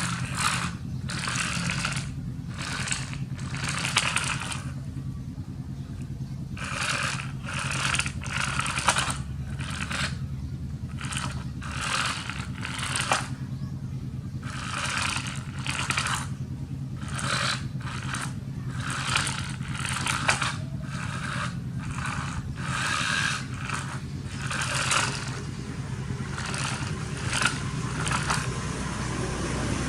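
Plastic toy vehicles being handled and pushed about, with repeated short scraping sounds over a steady low hum.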